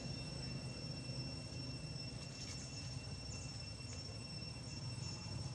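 Quiet outdoor ambience: a steady, high-pitched insect drone with faint short chirps every second or so, over a low rumble.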